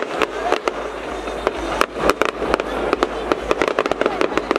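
Aerial fireworks display: a rapid, irregular string of sharp bangs and cracks from shells bursting overhead, many in quick succession.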